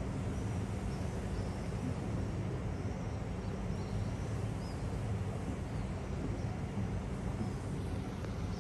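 Steady low mechanical hum that holds even throughout, with faint short high chirps scattered over it.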